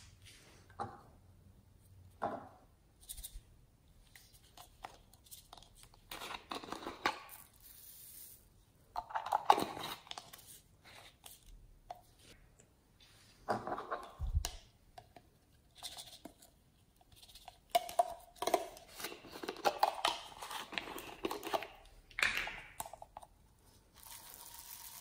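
Small plastic bottles of foam beads crinkling and rattling as the beads are shaken and poured out into slime, in irregular bursts, loudest about nine seconds in.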